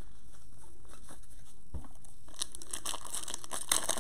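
Foil Panini Prizm basketball card pack crinkling and being torn open by gloved hands, starting a little past halfway, with a few sharp crackles near the end.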